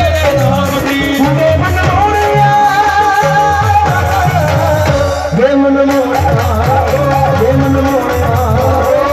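Live folk song: a male singer sings into a microphone through a PA system over drum accompaniment with a steady beat.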